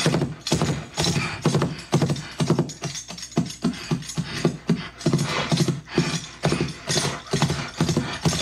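Horse hoofbeats clip-clopping in a steady, even rhythm of about three strokes a second.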